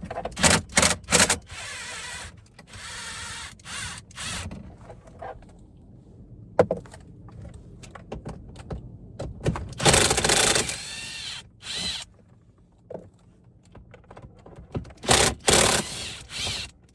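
An 8 mm socket on an extension backing out the three screws that hold the APIM and gateway module: short bursts of the tool turning, with clicks and rattles of the socket and metal parts between them. The longest and loudest burst comes about ten seconds in.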